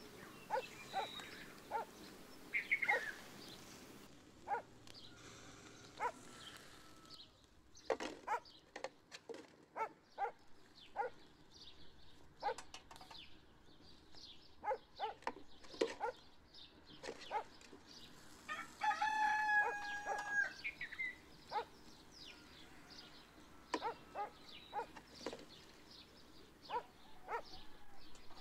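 Metal kebab skewers clinking as they are turned on a charcoal grill, a run of sharp clicks throughout. About two-thirds of the way through, a rooster crows once, a held call of about a second and a half and the loudest sound.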